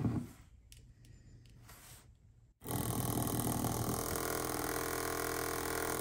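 Electromagnetic trembler mechanism of a 150-year-old fire alarm bell buzzing steadily on battery power, its armature vibrating against the coil. It starts abruptly about two and a half seconds in, after a brief low bump at the start, and shows the mechanism working.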